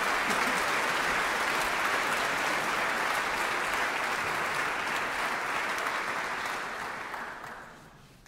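Audience applauding in a large concert hall, a steady dense clapping that fades away over the last second or so.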